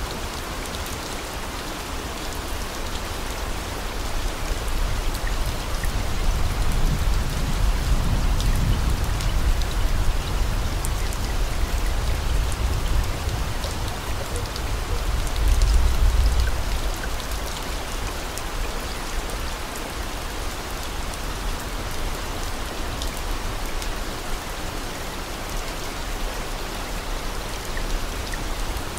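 Steady rain falling, with scattered drop ticks over an even hiss. A low rumble builds through the first half and peaks just past the middle before easing off.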